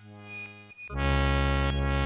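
Electronic music: synthesizer tones, quieter for the first second, then a loud, sustained low synth tone with many overtones comes in about a second in.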